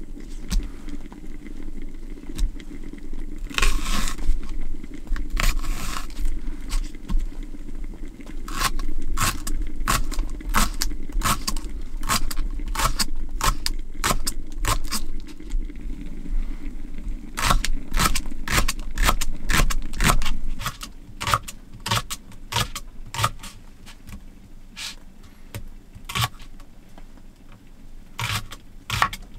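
Kitchen knife chopping a Japanese leek (negi) on a cutting board: a few slower slicing strokes, then runs of quick knife knocks on the board.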